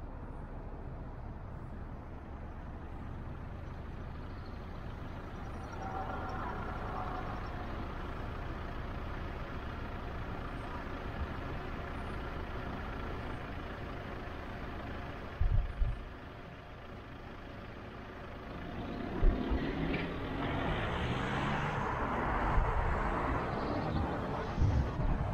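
Car on the move: a steady low rumble of engine and tyres, with two sharp thumps about two-thirds of the way through. The sound grows louder and busier near the end.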